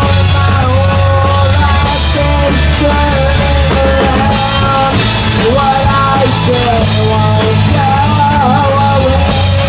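Loud rock song with a full band and drum kit, with several cymbal crashes over a steady bass and a sustained, gliding lead melody.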